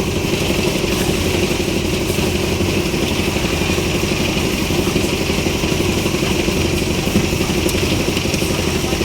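Engine of a concrete mixer and lift machine running steadily.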